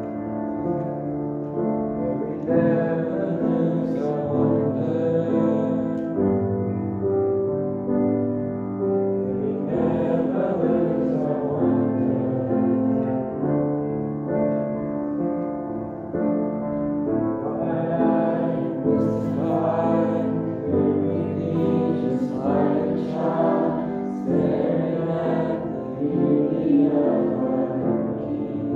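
Worship band playing a slow song, piano and acoustic guitar under sung vocals.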